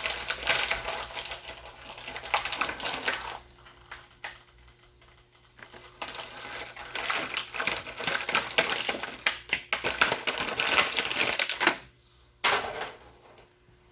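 Dense clicking and crackling of cardboard and plastic toy packaging being handled and opened, in two long spells with a short burst near the end.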